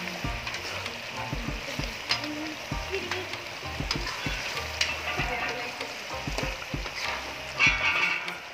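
Chicken pieces sizzling in thick gravy in a pan while a slotted metal spatula stirs them, with frequent scrapes and knocks of the spatula against the pan. The sizzling swells louder briefly near the end.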